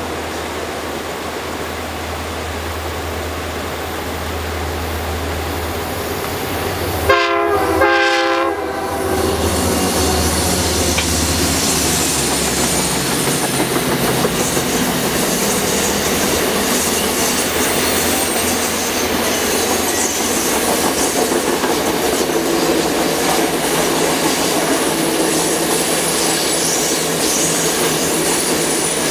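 Rocky Mountaineer passenger train passing on a curve. The diesel locomotive's engines rumble as it approaches, and its multi-tone horn sounds briefly about seven seconds in. The passenger cars' wheels then clatter and hiss steadily on the rails as the cars roll past.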